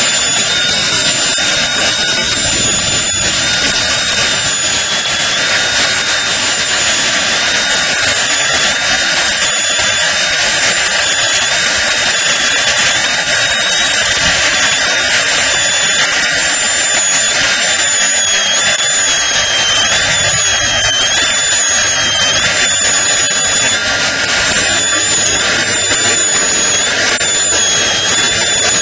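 High-speed dental handpiece whining steadily over a hiss, its pitch dipping again and again as the bur cuts into a central incisor during crown preparation.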